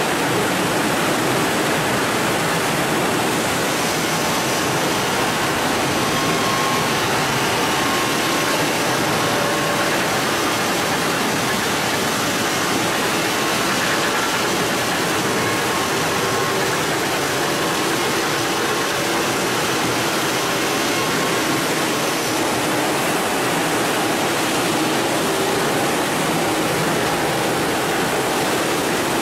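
Julun SPG automatic granite polishing machine running: a steady rush of water and stone slurry pouring through the machine, with faint steady tones from its polishing heads.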